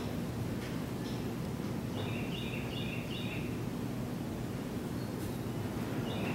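Steady rush of strong wind on the shop building. Over it, a bird twice gives a short phrase of four quick high chirps, about two seconds in and again just before the end.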